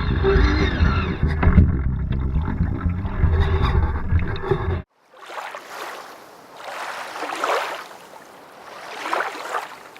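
Water rushing along a sailing boat's hull, loud with a heavy low rumble until it cuts off suddenly about halfway through. After that, softer swishes of water come and go twice.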